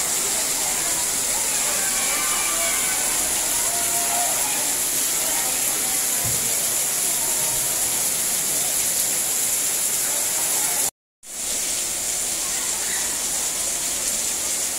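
Heavy tropical downpour hissing steadily. The sound cuts out for a moment about eleven seconds in, then the rain resumes.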